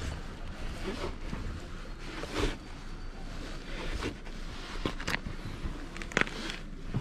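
Scattered rustles and light clicks from a hand and jacket sleeve working at the valve stem of a spoked motorcycle front wheel, over a steady low rumble.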